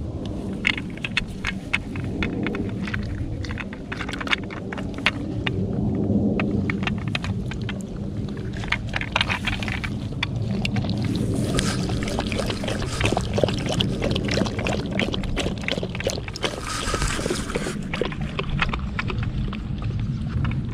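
A dog lapping water from a plastic trough fitted to a water bottle: many quick wet clicks, under a steady low rumble.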